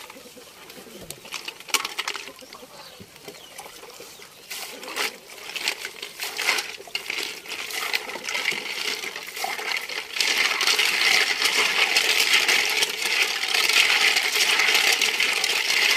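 Scattered clicks, knocks and splashes of hands working through mud and water in a metal pot. About ten seconds in, a steady, loud rushing noise takes over and lasts to the end.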